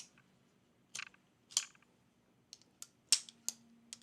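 Folding knife with a crossbar lock being flicked open and shut, giving sharp snapping clicks about seven times at uneven intervals, the loudest about three seconds in.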